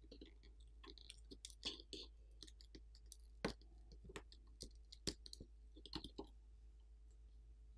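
Faint, scattered clicks and light scrapes of a metal spatula prying an adhesive-backed LED light panel off a phone's internal frame, as the panel is peeled loose.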